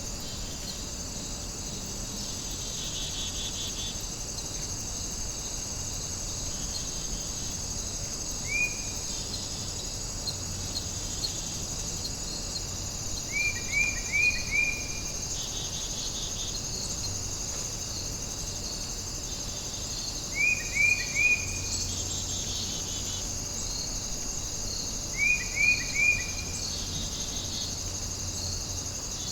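Chorus of crickets and other insects trilling steadily at a high pitch. Over it, a louder call of three or four quick, falling chirps repeats about every five to seven seconds.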